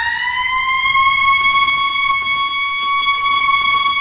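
Exaggerated comic crying wail: one long cry that rises in pitch and then holds a single high, steady note.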